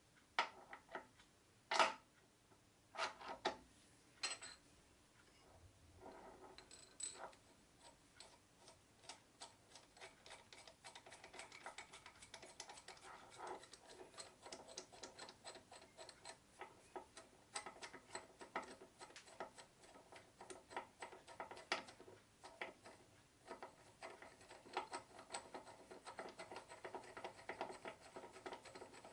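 Small steel parts being screwed together by hand: a few sharp metallic clicks and knocks, then a long run of quick, light ticking as a steel pin through a cross-hole is worked to turn the threaded parts.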